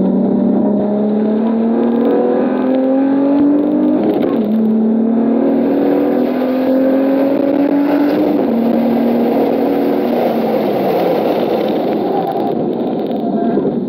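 Car engine heard from inside the cabin under hard acceleration, with road noise. The pitch climbs steadily and drops twice, at about four and about eight seconds, as the driver shifts up a gear. After the second shift it holds roughly steady and then eases off.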